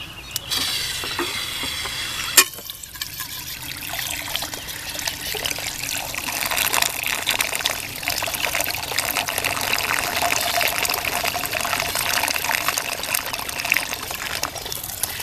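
A stream of water pours and splashes into the ribbed bowl of a small gold-prospecting centrifuge, filling it with a steady rushing sound that builds from about four seconds in. There is a single sharp click about two and a half seconds in.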